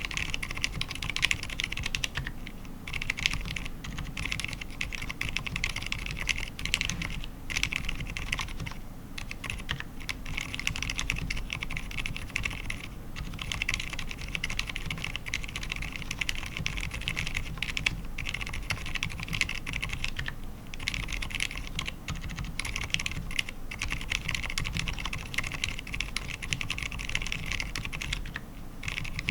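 Fast, continuous typing on an ABKO AR87 mechanical keyboard with fully lubed Cherry MX Silent Red linear switches, PBT keycaps and an aluminium plate, without foam. Dense rapid keystrokes with a few brief pauses, around a third of the way in and near the end.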